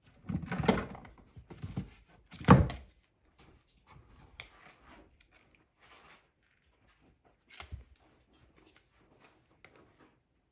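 A capuchin monkey rummaging in a toy bin and handling plastic toys: two loud thuds, about half a second and two and a half seconds in, then scattered light clicks and knocks as it turns a yellow plastic toy in its hands.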